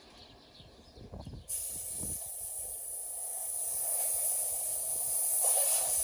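A steady hiss that starts suddenly about one and a half seconds in, after a few soft thumps.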